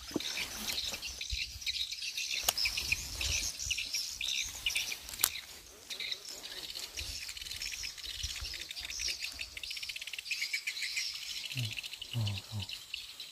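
Birds chirping and calling continuously, mixed with fast high insect trilling. A few short low sounds break in near the end.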